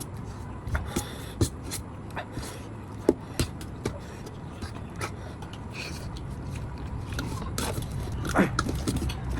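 People eating: scattered small clicks and scrapes, over a low steady hum.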